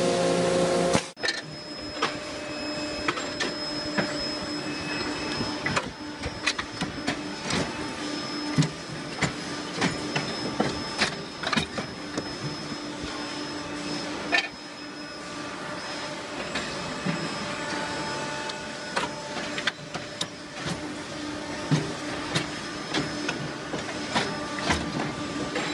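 Machinery running: a steady hum and a faint high whine with many sharp, irregular clicks and ticks. A louder machine sound cuts off about a second in.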